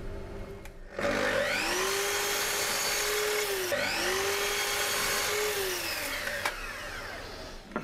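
Festool sliding mitre saw motor spinning up about a second in and running with a high whine. It dips briefly and spins up again, then winds down over the last couple of seconds, with a click as it slows.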